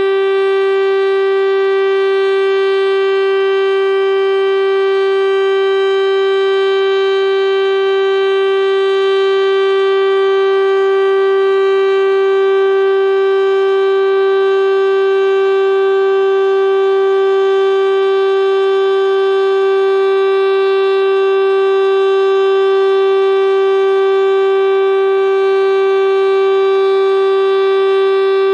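Federal Signal STL-10A outdoor warning siren, a 10 HP, 7-port single-tone siren, sounding the steady Alert signal at full speed during its monthly test. It holds one loud tone without any rise or fall in pitch or level.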